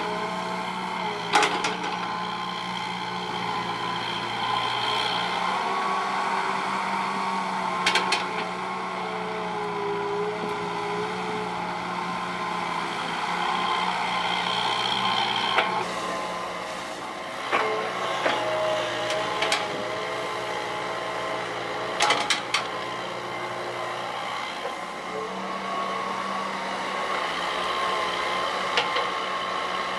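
Hitachi EX120 excavator's diesel engine running under working load, its pitch rising and falling as the hydraulics dig and swing. A few sharp knocks stand out over it, the loudest about a second and a half in and about twenty-two seconds in.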